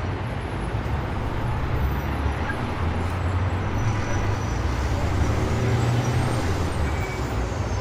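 A bus running: a steady low engine rumble with road noise.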